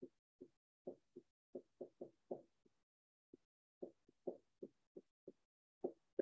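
Dry-erase marker strokes on a whiteboard: a string of short, soft knocks as letters are written, pausing for about a second partway through.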